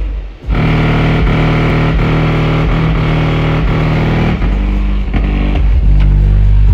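Loud music with heavy, distorted bass, played through a pair of Kicker CVR 10-inch subwoofers powered by an 800-watt Kicker amp, in a bass demo of the new system. The music breaks off briefly about half a second in, then carries on.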